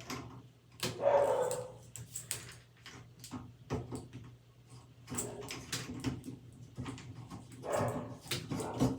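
Irregular clicks and clatter of plastic shower hose and bracket parts being handled and fitted together. A short mid-pitched sound comes about a second in and again near the end.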